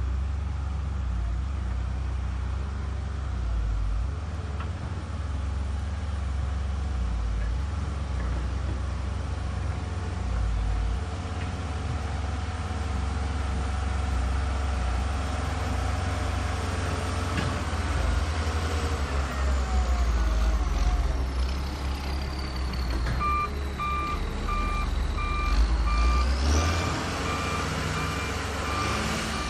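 Heavy diesel construction machine running with a steady low rumble and a whine that slowly falls, then rises sharply near the end. From about three-quarters of the way in, a reversing alarm beeps steadily.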